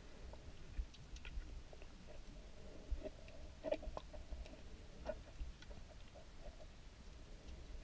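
Underwater sound picked up by a submerged camera: irregular sharp clicks and crackles over a low rumble of moving water.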